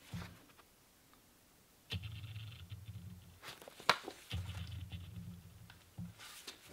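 A paperback manga volume being handled: faint page and cover rustling with a few sharp taps and clicks, the loudest about four seconds in, and two stretches of low rumbling handling noise.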